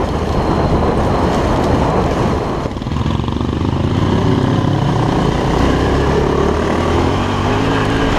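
Yamaha Ténéré 700's 689 cc parallel-twin engine running under way on a dirt track, heard from the bike itself, steady apart from a brief drop in level nearly three seconds in.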